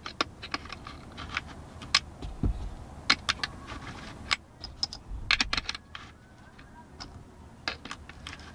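Brass .303 British cartridges being pressed one by one into a Lewis gun pan magazine: irregular sharp metallic clicks and light rattles as the rounds go into place, with a couple of duller knocks against the tabletop.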